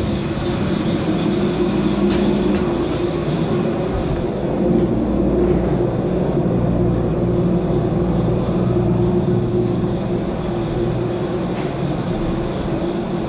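Steady machine drone with several held low hum tones from a parked airliner and its jet bridge ground equipment. The low hum shifts slightly about four seconds in.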